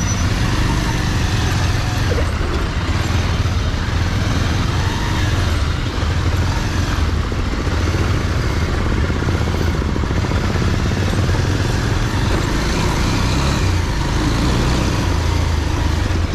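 Motorcycle engine running steadily at low speed in slow, congested road traffic, with the noise of other vehicles around it.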